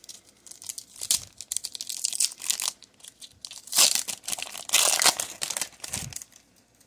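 Foil wrapper of a Pokémon trading card booster pack crinkling as it is handled and torn open, in several short bursts of rustling and tearing, the loudest about four to five seconds in.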